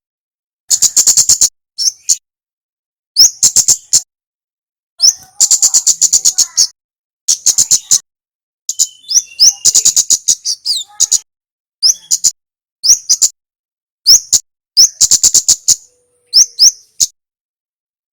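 Kemade songbird calling in repeated short bursts of rapid, sharp, high ticking notes. There are about a dozen bursts, each under a second and a half, with brief pauses between them.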